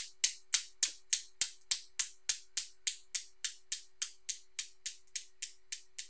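Silver magnetic balls of a homemade Newton's cradle clicking against each other as the released end ball swings, a sharp click about three and a half times a second. The first click is the loudest and the rest slowly grow softer as the swing dies down.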